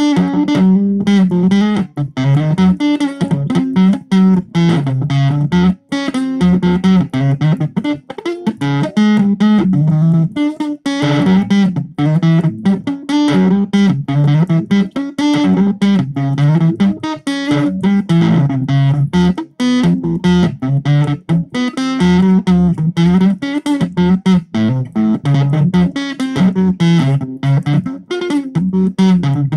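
Electric guitar played through a Zoom 506 bass distortion pedal, a riff of quick low notes repeated over and over.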